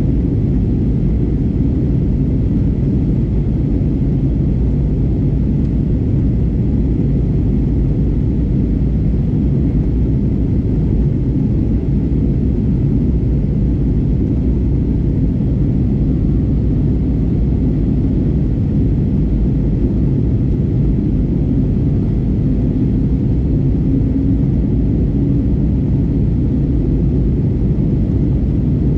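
Steady low rumble of jet engine and airflow noise inside the cabin of an Airbus A320neo (A320-271N) in flight, unchanging throughout.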